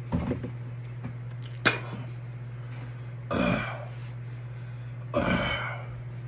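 A man burping: a short one at the start, then two longer, louder ones about three and a half and five seconds in. A sharp click comes a little before two seconds, and a steady low hum runs underneath.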